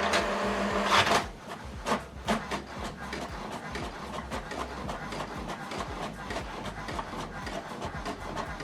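HP Deskjet 4220e inkjet printer printing. It opens with a loud motor whir for about a second, gives two clicks, then settles into a steady fast ticking and whirring as it prints.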